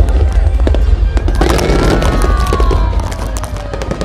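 Aerial fireworks going off in rapid, loud bangs and crackles. A long falling whistle sounds in the middle.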